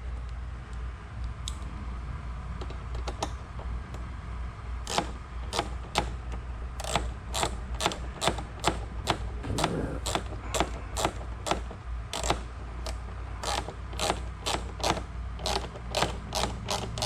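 Hand ratchet clicking as a bolt is run in. The clicks come at a few scattered points at first, then from about five seconds in fall into a steady run of about two to three a second, closer together near the end.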